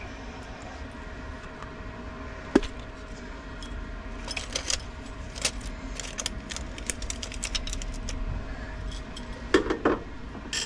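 Hand work on the pool pump motor's wiring compartment. A sharp click comes about two and a half seconds in, then a run of small metallic clicks and clinks, with a louder clatter near the end.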